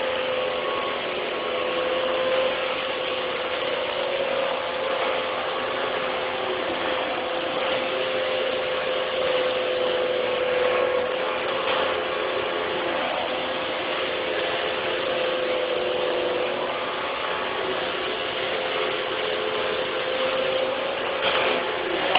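Small geared electric motor running steadily, a constant whine over gear and drive noise, with a couple of knocks near the end.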